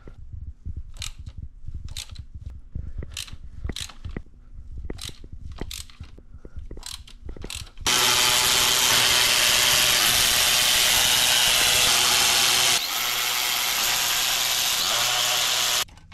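Hand ratchet clicking in slow, irregular strokes while a bolt is backed out, then a Ryobi cordless ratchet running for about eight seconds, dropping to a lower, steadier sound about five seconds into its run before it stops.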